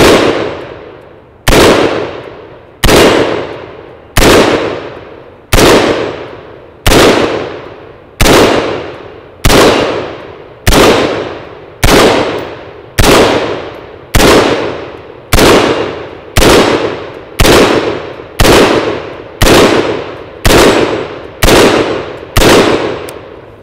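Brownells retro XM177E2 carbine (5.56 mm, 55 grain ball) firing slow, steady semi-automatic shots, about eighteen in all at roughly one every 1.3 seconds, each followed by a long fading echo. The rounds are striking a steel target.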